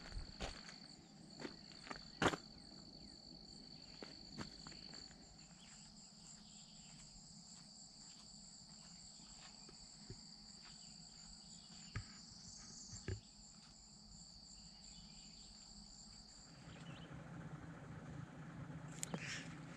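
Insects trilling steadily in two high, even tones, with scattered faint clicks and taps. Near the end the insects stop and a low steady hum takes over.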